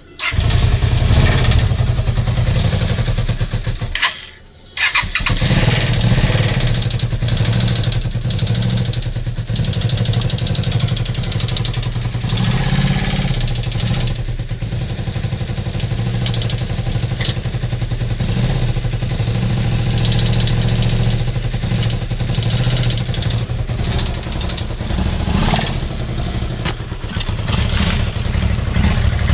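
Honda VT250F's 250 cc V-twin engine running, with a knocking in the motor. The sound cuts out briefly about four seconds in, then carries on.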